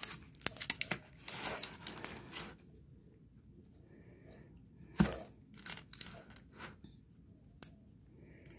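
Wrapping of craft wax crinkling and tearing as it is handled, in rustling spurts over the first two and a half seconds. About five seconds in comes a single sharp tap, the loudest sound, then a few lighter clicks.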